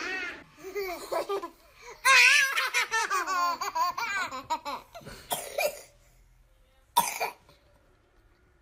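Two toddler girls laughing hard in a high, wavering bout from about two seconds in to about five seconds, followed by one short, sharp burst of laughter a little later.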